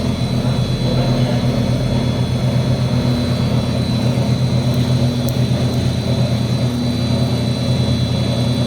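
Plastic recycling extruder driven by a 20 HP electric motor, running steadily: a constant low mechanical hum with a faint steady high whine over it.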